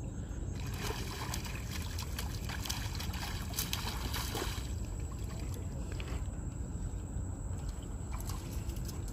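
A hooked fish splashing and thrashing at the water's surface beside a wooden boat while it is reeled in, in short sharp splashes mostly in the first half. Under it runs a steady low rumble of wind and water.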